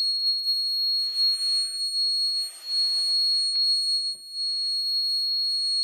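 The robot's crack-alert piezo buzzer sounds one steady high-pitched tone throughout. Two stretches of rustling and scraping come from the robot being handled, about a second in and again from about two to three and a half seconds in.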